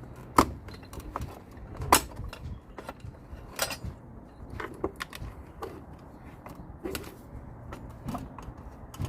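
Irregular metallic clicks and clinks of hand tools and small parts being handled, with sharper knocks about half a second and two seconds in.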